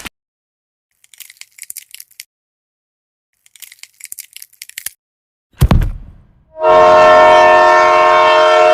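Faint crackly clicking twice, a thump, then a loud train horn blowing a steady chord of several notes for about two and a half seconds before cutting off abruptly.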